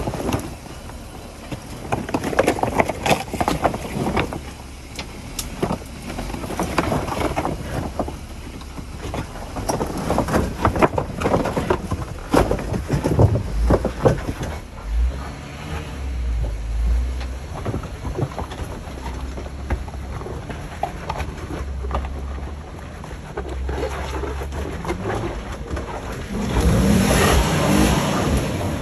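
An off-road vehicle on 35-inch tires crawling through a trail obstacle: the engine runs low and uneven, with repeated knocks and clunks from the rig working over the terrain, and a louder stretch of engine and tyre noise near the end.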